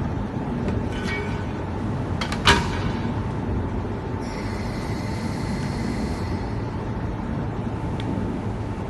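Steady running machinery with a low rumble and a steady mid-pitched tone. A sharp click comes about two and a half seconds in, and a hiss lasts about two seconds around the middle.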